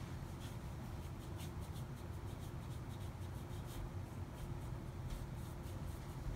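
Paintbrush bristles brushing and scratching across watercolour paper in many short, light strokes as a wet-into-wet wash is laid, over a low steady hum.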